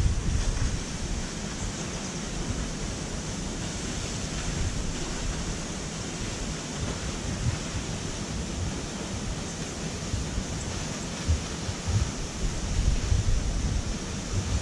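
A tall waterfall plunging onto rocks and a pool, giving a steady, even rush. Wind buffets the microphone in low gusts, more often in the last few seconds.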